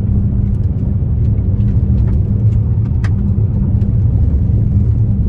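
Car cabin on a gravel road: the steady low rumble of tyres and road noise, with scattered light ticks.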